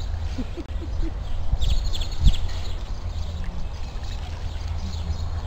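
Water sloshing and splashing as a big cat wades through a shallow muddy pool, under a steady low rumble of wind on the microphone. A brief low thump comes a little after two seconds in.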